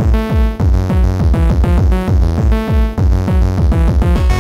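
Electronic music from an Amiga demo intro: a fast drum-machine beat with punchy kicks that drop in pitch, under synth lines, in the sample-based tracker style of Amiga demos.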